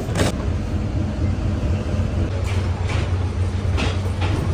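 Rubber-tyred Paris Métro line 6 train running, heard from inside the carriage as a steady low hum, with a sharp click of the door handle right at the start and a few short rattles in the second half.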